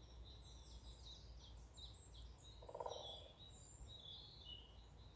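Songbirds singing in woodland: high chirps and quick falling notes, then a short trill. Near the middle comes a brief buzzing rattle, the loudest sound here.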